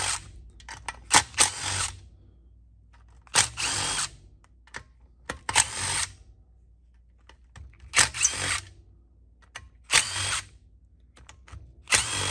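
DeWalt 20-volt cordless driver spinning out the bolts around the perimeter of a mower engine's oil sump, in about six short bursts roughly two seconds apart, one bolt after another.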